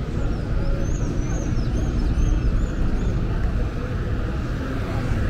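City street traffic: a steady low rumble of buses and cars passing on the avenue, with a run of short high chirps about a second in.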